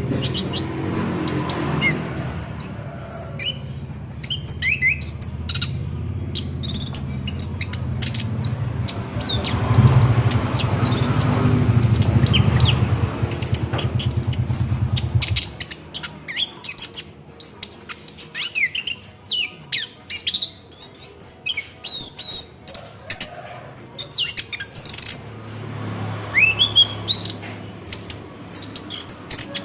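Orange-headed thrush (anis kembang) singing a fast, continuous rolling song of quick, varied high chirps, trills and short gliding notes, the 'ngerol' style. A low rumble runs underneath for about the first half and again briefly near the end.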